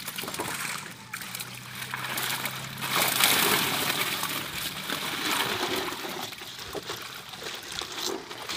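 Water splashing and trickling as a plastic basket of live fish is tipped into a plastic bag and dipped back into a net cage, loudest about three seconds in.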